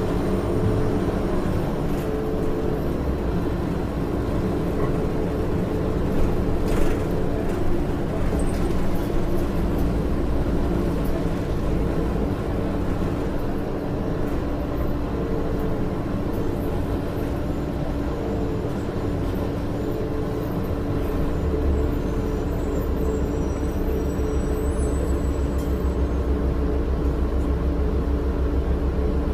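Orion VII city bus heard from inside the passenger cabin: its Cummins ISL diesel engine and Allison automatic transmission run with a steady drone over a low rumble. A brief knock comes about a quarter of the way through, and the low rumble grows stronger about two-thirds through.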